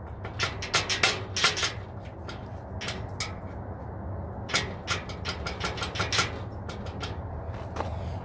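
Foam paint brush rubbing and dabbing along a painted wooden fence picket in short, irregular strokes, over a steady low hum.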